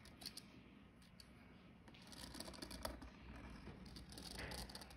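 Faint scratching of a felt-tip marker drawing a curve on paper, a little louder from about two seconds in, with a few soft ticks.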